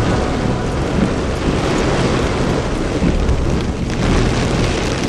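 Heavy rain falling steadily, with a deep low rumble under the hiss of the drops.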